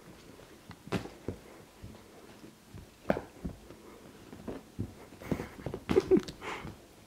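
Siamese cat rolling and kicking on a fabric sofa: irregular scuffles, light thumps and rustling of the upholstery, with a cluster of louder thumps near the end.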